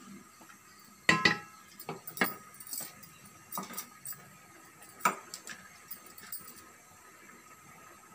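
Scattered sharp clinks and knocks of a utensil against an aluminium cooking pot on the stove, the loudest a pair about a second in and another about five seconds in.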